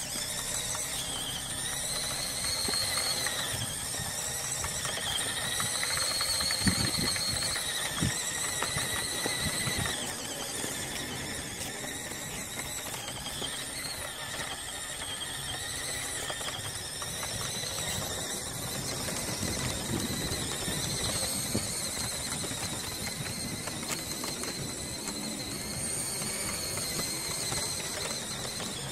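WPL B-16 RC 6x6 truck's electric motor and metal gear drive whining. The pitch rises and falls as the truck speeds up and slows down, with a couple of knocks about seven and eight seconds in.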